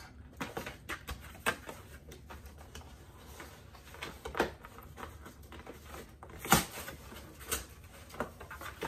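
A cardboard shipping box being cut open with a small knife and pulled apart: scraping and rustling with scattered sharp clicks and knocks, the loudest about two-thirds of the way through.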